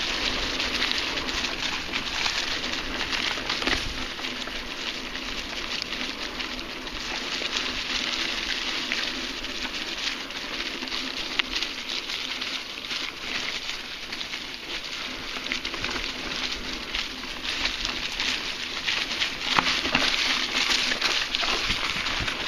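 Mountain bike tyres rolling over a dirt trail covered in dry fallen leaves: a continuous crackling rustle with many small clicks and rattles.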